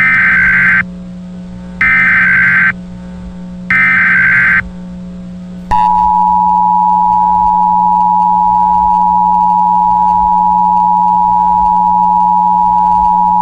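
Emergency Alert System tones: three short bursts of warbling SAME header data tones about two seconds apart. From about six seconds in comes the steady EAS attention signal, two beeping tones (853 and 960 Hz) sounded together.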